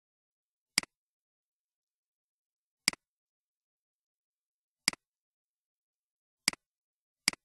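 Computer mouse button clicking five times, a second or two apart, each click a quick double tick of press and release, with dead silence between.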